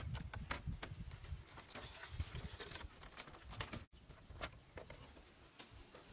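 Irregular knocks, clacks and taps of bamboo and wooden poles being handled and fitted into a railing frame, with a few dull thumps; the sound cuts off abruptly about four seconds in and picks up again.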